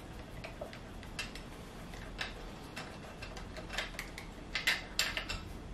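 Light, irregular metallic clicks and ticks of an Allen wrench working a screw on an electric scooter's handlebar stem, growing louder and closer together near the end.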